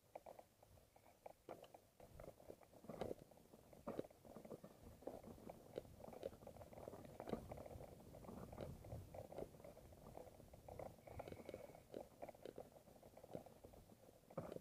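Mountain bike rolling down a rough dirt singletrack: faint, irregular clicks and rattles of the bike and its tyres over the bumpy ground.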